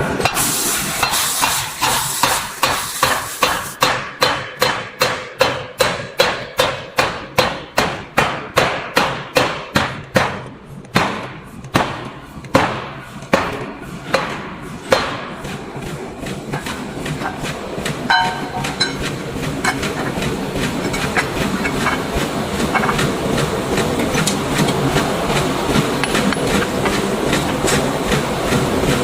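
Hammer blows on red-hot iron being forged into a round disc, fast and even at about three a second, then slowing to a few spaced, irregular strikes. After that only a steady noise with faint ticks remains.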